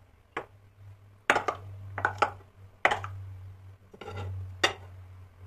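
A small porcelain cup knocking and clinking against glass bowls of cake batter and the baking pan: about seven sharp separate knocks, a few in quick pairs.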